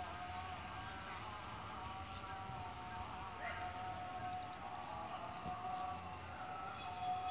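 Steady, high-pitched insect drone with fainter, steady lower tones underneath.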